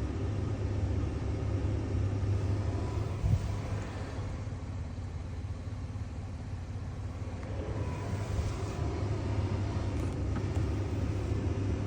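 Steady low rumble of a vehicle running, with a single brief knock about three seconds in.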